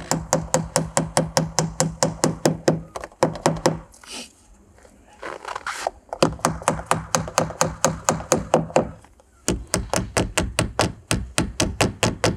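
Rapid, evenly spaced knocks, about five a second, in three runs broken by short pauses, with a brief hissing stretch between the first two runs.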